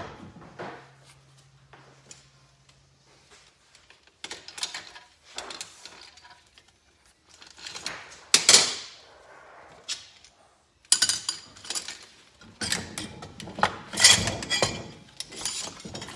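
Cylinder block of a Kawasaki KZ400 engine being worked loose and lifted off the crankcase: scattered metal clinks, knocks and scrapes. The loudest knock comes about eight seconds in, and there is a dense stretch of clatter over the last five seconds as the block comes free.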